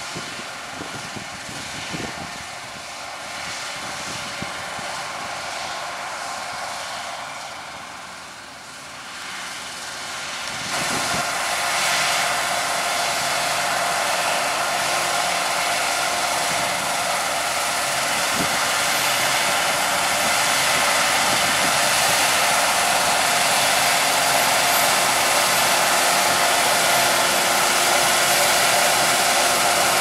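Claas Lexion 7500 combine harvester running at work in barley, unloading grain into a trailer drawn alongside by a John Deere tractor, engines and threshing machinery going steadily. It gets louder about a third of the way in, with a steady whine over the machine noise.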